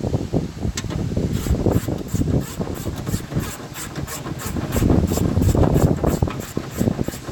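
Hand ratchet clicking in quick, even strokes, about four or five a second, as a nut is run down onto a stud, with rubbing and handling noise from the tool and panel.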